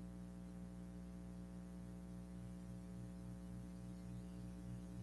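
Faint steady electrical hum, a low tone with a ladder of overtones and a slight pulsing in the bass, and no other sound.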